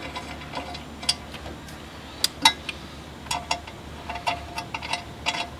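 Bolts clicking and clinking as they are slid by hand back into their holes: light, irregular ticks, with two louder clicks about two seconds in.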